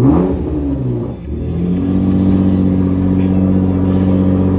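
2018 Nissan GT-R's twin-turbo V6 running after starting on a freshly fitted battery: one quick rev at the start that falls back, then steady idle.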